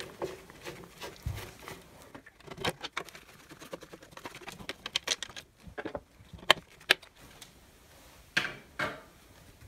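Irregular plastic clicks, knocks and scrapes as a screwdriver undoes a household breaker panel's plastic cover and gloved hands lift it off. The sharpest click comes a little after six seconds, followed by two short rattles near the end.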